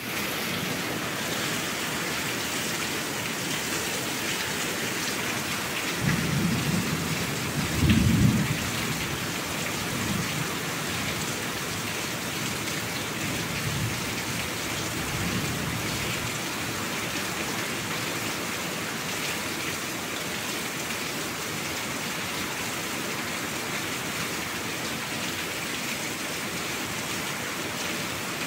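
Steady heavy rain, with low rolls of thunder rumbling about six to eight seconds in, the loudest near eight seconds, and fainter rumbles a few times after.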